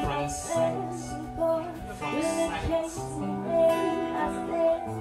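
Live band playing a slow backing groove, led by acoustic guitar picking, with keyboard and bass guitar underneath.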